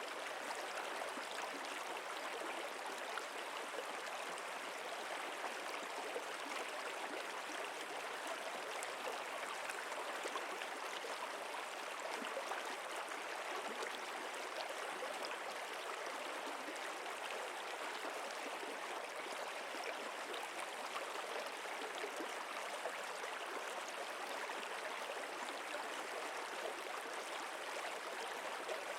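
Stream water flowing steadily, an even rush that does not change.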